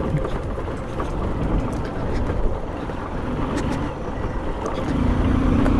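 Honda CB Shine 125's single-cylinder engine running as the motorcycle rides a rough dirt track, under a dense low rumble of wind and road noise with a few short knocks. Near the end the engine note comes up louder and steadier.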